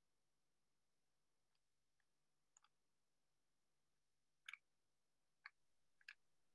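Near silence: room tone with a handful of faint, short clicks in the second half, the clearest a quick double click about four and a half seconds in.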